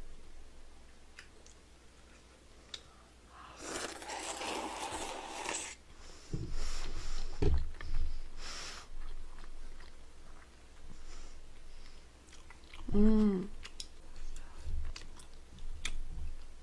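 Close-miked eating: a long slurp of a mouthful of glass noodles a few seconds in, followed by wet chewing and biting. A short hummed 'mm' about thirteen seconds in.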